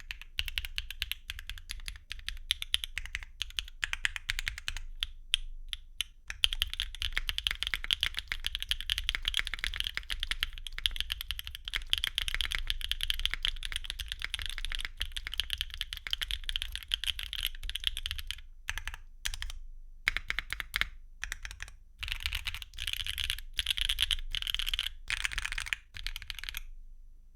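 Typing on a Neo65 custom mechanical keyboard with MMD Princess V4 linear switches, a carbon fibre plate, no foam and Cherry-profile double-shot ABS keycaps. Fast runs of keystrokes are broken by a few stretches of slower, separate presses, and the typing stops shortly before the end.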